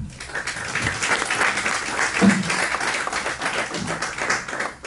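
Audience applauding: many hands clapping together, ending near the end.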